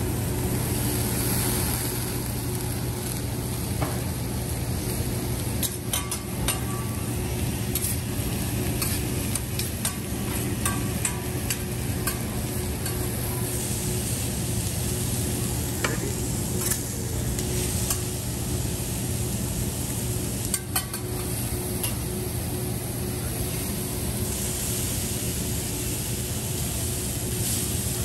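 Food frying and sizzling on a steel teppanyaki griddle. Metal spatula and knife strokes click and scrape against the hot plate now and then, most often between about five and twelve seconds in and again around sixteen to twenty seconds.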